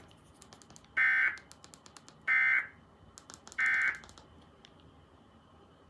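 Emergency Alert System end-of-message data bursts: three short, identical, buzzy two-tone digital bursts about a second and a half apart, signalling that the alert broadcast has ended.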